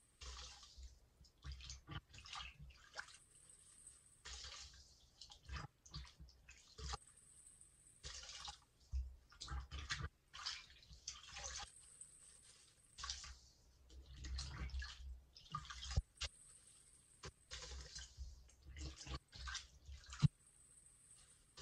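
A wet sponge being squeezed and swished by hand in water in a sink basin: irregular splashing, squelching and dripping, with a swishing rush every few seconds.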